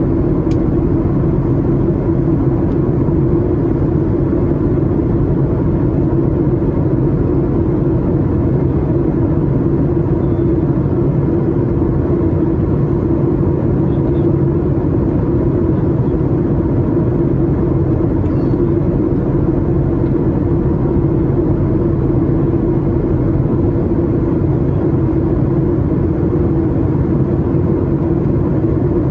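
Steady cabin noise of a Boeing 737 MAX 8 in flight: a constant drone of its CFM LEAP-1B engines and airflow, with a steady hum running through it.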